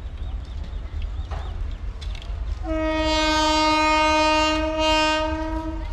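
Electric locomotive horn, heard from a train approaching out of view, sounding one long steady note that starts about two and a half seconds in and lasts about three seconds, over a steady low rumble.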